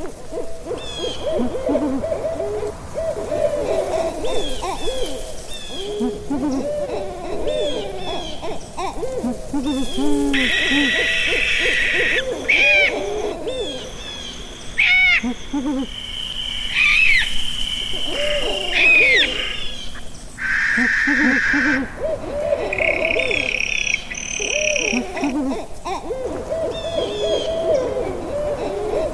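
Owls hooting: many short, overlapping hoots repeating throughout, with higher, harsher calls breaking in several times.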